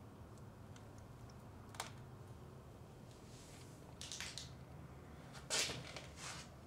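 Quiet room tone with a faint click a little under two seconds in, then three short rustling noises, the loudest about five and a half seconds in.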